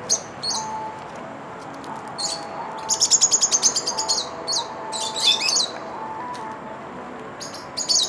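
Lovebirds chirping shrilly: scattered sharp single chirps, then a fast chattering run of about ten chirps a second lasting roughly a second, followed by a tangle of overlapping calls.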